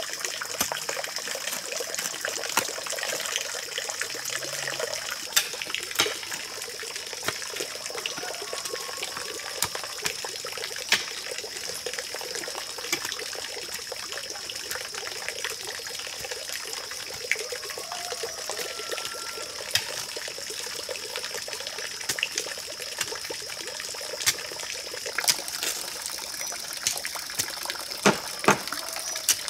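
Steady trickle of water pouring from a bamboo pipe, with irregular sharp knocks and scrapes of a shovel digging into soil, two of them louder near the end.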